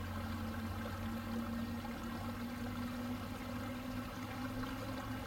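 Embraer 175's twin turbofan engines running as the jet moves along the runway: a steady rushing jet noise with a low, even hum underneath.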